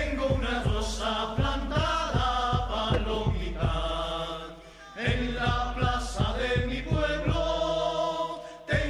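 Background music: voices singing together in a chant over a steady beat, fading out about halfway through and starting again.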